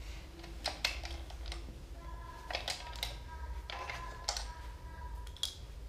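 Sharp metallic clicks and taps, about seven at irregular intervals, as short-track speed skate blades are clamped and levelled in a sharpening jig. A faint ringing tone runs through the middle.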